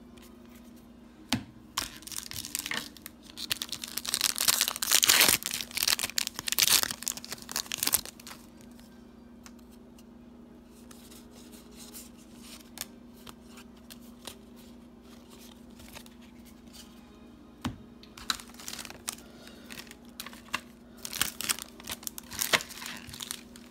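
Foil booster-pack wrapper being torn open and crinkled, in two spells of rustling: one a couple of seconds in and one near the end. Light clicks of cards being handled come between them.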